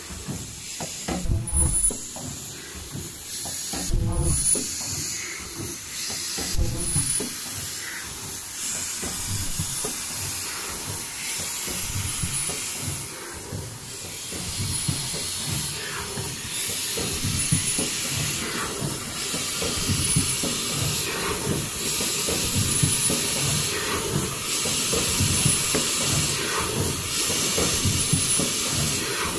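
Automatic folding-mask production line running: a steady hiss and a dense mechanical clatter, with short high-pitched tones repeating about every two and a half seconds.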